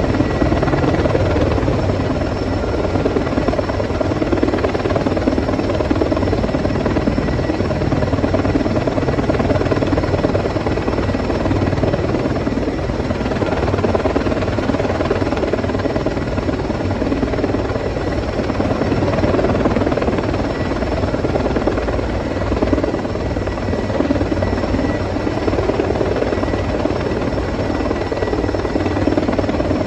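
Sikorsky S-64 Skycrane heavy-lift helicopter hovering with a load slung beneath it: continuous loud rotor and engine noise with a steady high whine over a low rumble.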